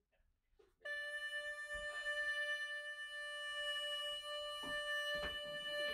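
Hulusi (Chinese gourd flute) playing a single long, steady note, held for about five seconds and starting about a second in.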